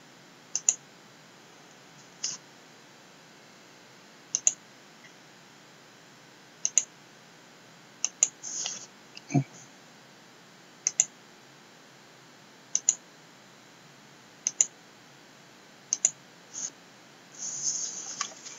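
Computer mouse clicks: single press-and-release clicks spaced a second or two apart, most heard as a quick double tick. A short rustling patch comes just past the middle and a longer one near the end.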